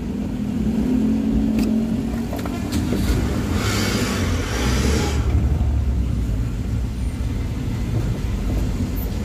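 Vehicle engine running in slow, stop-and-go traffic, heard from inside the cabin, with a hiss lasting about a second and a half starting about three and a half seconds in.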